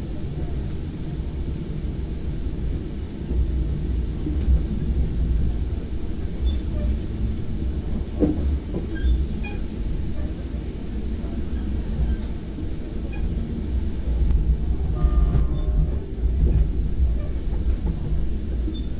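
Low rumble of a Virginia Railway Express commuter train running along the track, heard from inside the upper deck of a bi-level Gallery IV trailer car.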